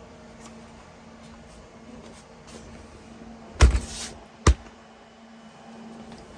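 Wall anchors being handled as they are taken out of their kit: a short clatter about three and a half seconds in, then a single sharp click.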